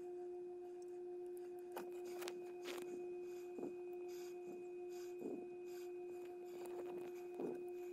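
Faint steady electrical hum on one unchanging high tone, with a few short soft rustles and clicks scattered through it.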